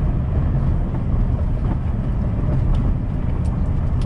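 Truck driving at road speed, heard from the cab: a steady low rumble of engine and road noise.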